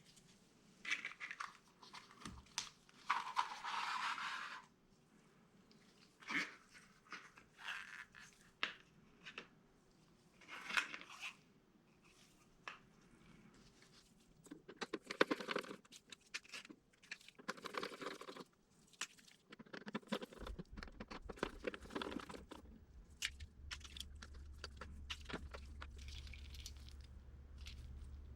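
Hands taking apart a Camtono prop: irregular clicks, scrapes and crunches of its parts being handled and pried apart, with a longer tearing, crunching noise a few seconds in. A low steady hum joins about two-thirds of the way through.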